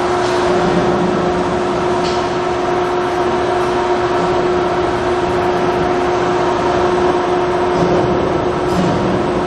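Readco twin-shaft continuous mixer running, its agitator shafts driven by a variable-speed drive: a steady mechanical hum with a constant whining tone.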